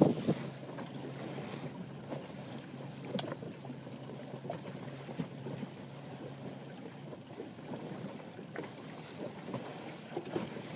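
Water lapping and splashing against the hull of a Hobie Adventure Island sailing kayak trimaran, with scattered light clicks and knocks. A faint steady hum fades out about two-thirds of the way in.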